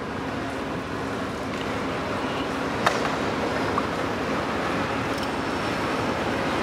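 Steady drone of dockside machinery with a faint low hum, slowly growing a little louder, and a single sharp metallic clink about three seconds in.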